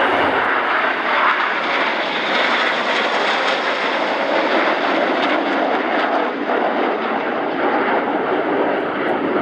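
Fixed-wing aircraft flying past, its engines making a loud, steady noise.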